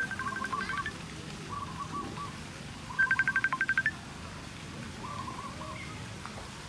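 Mobile phone ringtone: a rapid trill of high beeps, a short burst at the start and a louder burst of about a dozen beeps about three seconds in. The phone is ringing with an incoming call.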